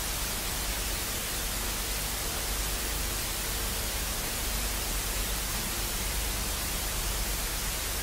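Steady static hiss, as of a blank video tape or untuned screen, with a faint low hum underneath.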